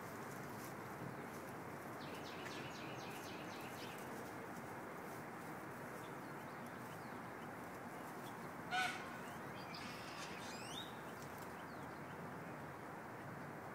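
A peafowl gives one short, loud honking call about two-thirds of the way through, over a steady hiss of background noise. Small birds add a quick high trill about two seconds in and a few thin chirps after the call.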